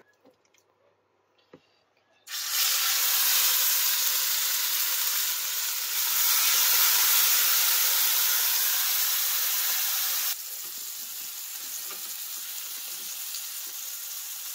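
Oil-marinated skirt steak frying in a hot stainless steel frying pan. A loud sizzle starts suddenly about two seconds in as the meat goes into the pan, after a few faint clicks of tongs. It drops abruptly to a quieter, steady sizzle about ten seconds in.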